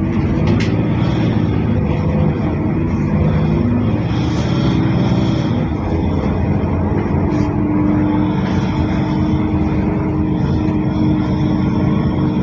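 Mercedes-Benz OC500LE bus engine running steadily under way, heard from inside the cabin, with a couple of clicks near the start. It has an odd, hollow sound that the rider likens to a big metal box, unlike the bus's normal engine note.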